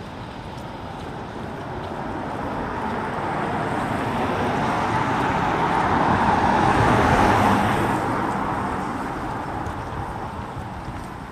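A road vehicle passing close by on a city street. Its noise swells steadily to a peak about seven seconds in, then fades away.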